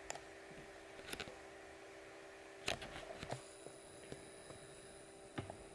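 Faint room tone with a steady low hum, broken by a few small clicks and knocks of a handheld camera being moved and handled, the clearest about a second in and again near the middle. A faint high whine joins the hum a little past halfway.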